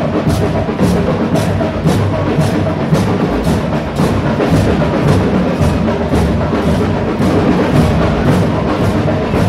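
School marching band playing: drums beat a steady march rhythm, about two strokes a second, under pitched instruments.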